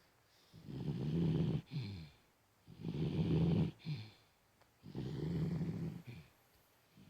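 Cocker spaniel snoring while asleep: three long snores about two seconds apart, each ending with a short falling sound.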